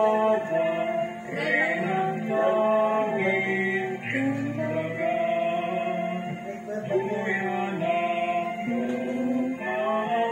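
Church hymn sung by voices with long held notes, playing from a livestreamed Mass on a TV and heard through the TV's speakers.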